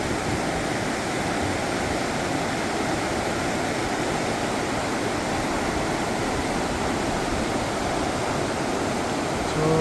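Steady rush of a river in spate, swollen after days of heavy rain.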